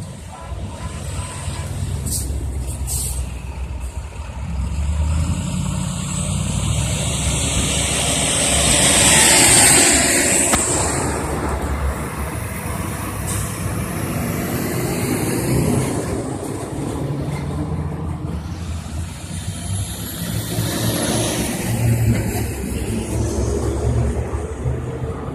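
Diesel engines of railroad track-maintenance machines running, with a loud hiss about ten seconds in and high, thin squeals later on.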